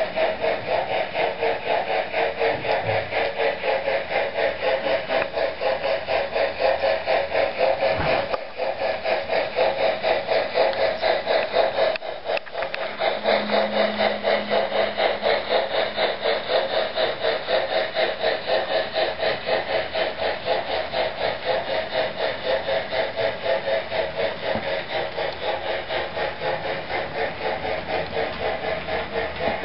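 Sound-equipped HO-scale Norfolk and Western class A 2-6-6-4 steam locomotive model playing rapid, steady steam chuffing through its onboard speaker while running along the track.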